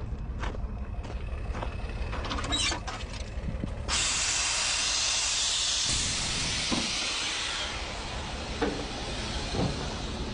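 Air let out of a semi truck's air system: a sudden loud hiss about four seconds in, strong for about two seconds, then tapering off over the next two. The diesel engine runs steadily underneath.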